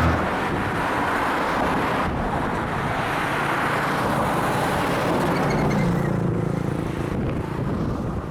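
Steady outdoor rushing noise of strong wind and road traffic, with a faint engine hum about five to six seconds in.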